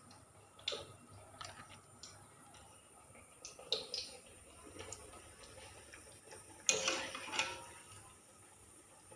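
Light clicks and knocks of kitchen utensils being handled, then a short louder clatter with a metallic ring about seven seconds in.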